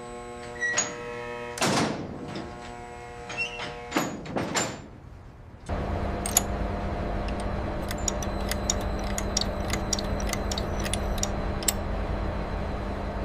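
Battleship gun-turret machinery. First comes a steady humming tone broken by a few sliding, door-like clanks. About six seconds in, a louder, steady mechanical rumble starts, with a low hum and light ticking, and runs on until it cuts off.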